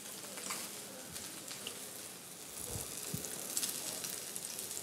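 John Dory fillets sizzling skin-side down in olive oil in a frying pan on gentle heat: a steady soft hiss with small crackles. Two brief soft knocks come about three seconds in.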